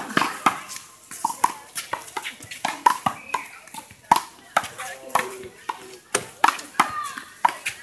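One-wall handball rally: a small rubber handball struck by hand, smacking off the wall and bouncing on the court, with sharp slaps a couple of times a second.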